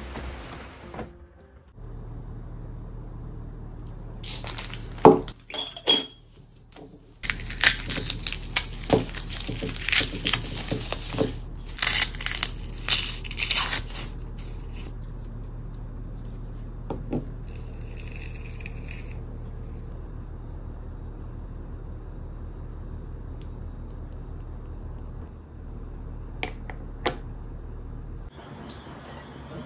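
Dry, papery garlic skins crackling and tearing as garlic bulbs are peeled by hand, in a dense run of small crackles, preceded by a couple of sharp knocks. A low steady hum underlies it.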